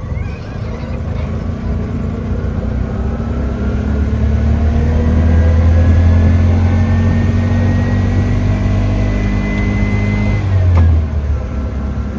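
A road vehicle's engine accelerating, its pitch climbing steadily for several seconds and then dropping suddenly near the end, as at a gear change.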